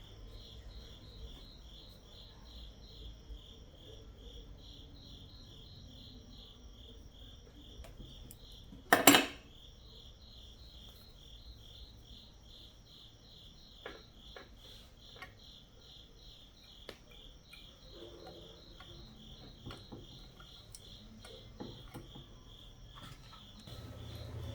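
Cricket chirping in a fast, even high-pitched pulse that stops shortly before the end. A single sharp click comes about nine seconds in, with a few faint taps.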